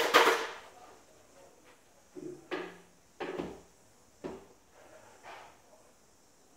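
Handling of a paint pot and brush at a stepladder. One loud scraping clatter at the start, then several short knocks and scrapes spread over the next few seconds.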